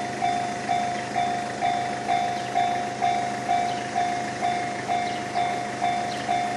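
Japanese railway level-crossing warning bell ringing steadily, a clear ding that strikes and fades about twice a second.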